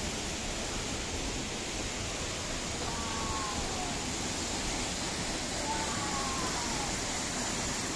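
Waterfall roaring: a steady, even rush of falling water.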